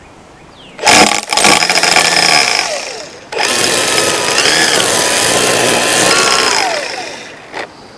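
Battery-powered Milwaukee M18 Fuel string trimmer (QUIK-LOK trimmer attachment on the power head) being triggered twice: the motor and line head whir up to speed, run for a couple of seconds each time, and wind down, the second run longer, its pitch rising then falling away near the end.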